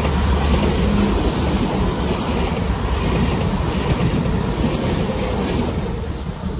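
A pair of Class 444 Desiro electric multiple units passing at speed: a steady rush and rumble of wheels on rail as the carriages go by, fading near the end as the rear of the train draws away.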